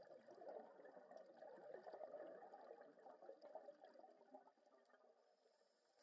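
Scuba diver's exhaled bubbles burbling and crackling past the underwater camera housing for about four and a half seconds, then fading.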